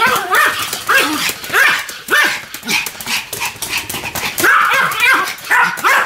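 Two Pomeranians barking together in a rapid run of short, high yaps, about two or three a second.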